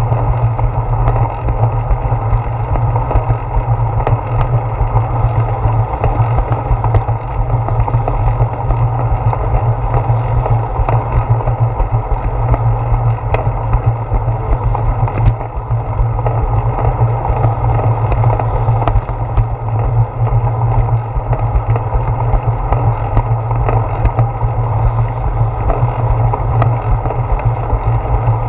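Steady low rumble of a bicycle rolling along a concrete path, with wind and road vibration heard through a handlebar-mounted GoPro Hero 4, with a few faint ticks.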